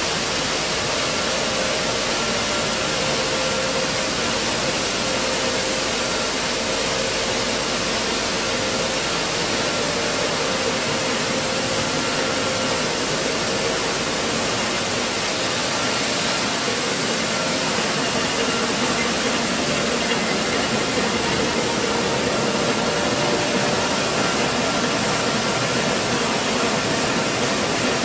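Stone flour mill plant running: the millstones of a row of stone grinding mills and their electric motors make a steady, even machine noise with a faint steady hum in it.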